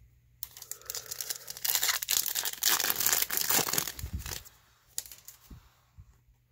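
A foil trading-card pack wrapper is torn open and crumpled, a dense crinkling that starts about half a second in and stops after about four seconds. A few faint taps follow as the cards are handled.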